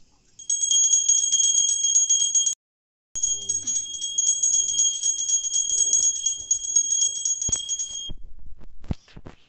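Puja bell rung rapidly and steadily, a fast even ringing that cuts off abruptly for about half a second a couple of seconds in, resumes, and stops about eight seconds in. A few sharp knocks follow near the end.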